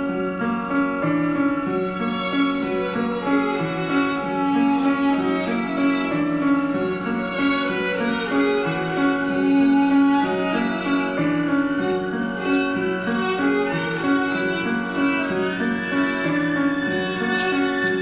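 Instrumental music for the dance, with long held notes that shift every second or so and a note that glides upward near the end.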